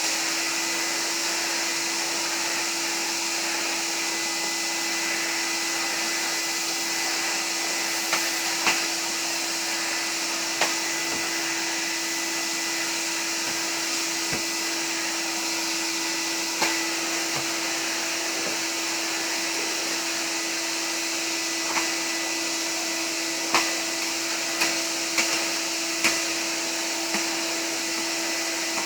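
Numatic Henry canister vacuum cleaner running steadily at full suction with a steady hum and airy hiss, while vacuuming a floor. Sharp clicks and knocks come now and then, more often in the second half.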